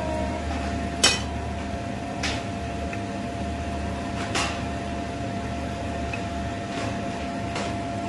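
Hot cooking oil in a stainless frying pan giving a few scattered sharp pops, the first about a second in the loudest, over a steady kitchen hum with a constant high whine.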